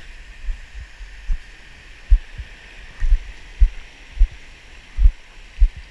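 Dull low thuds, one or two a second, as the wearer of a body-mounted action camera clambers over rocks, his steps and movements knocking through the camera. Behind them runs a steady hiss of surf.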